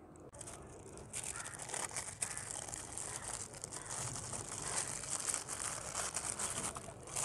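Thin white wrapping paper crinkling and rustling as it is folded and rolled around a shawarma wrap. It starts about a third of a second in as a dense rustle full of small crackles.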